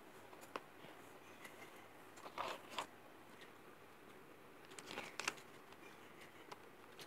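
Faint scattered clicks and short plastic rustles from handling a plastic pencil box with a built-in mini calculator, whose keys are being pressed.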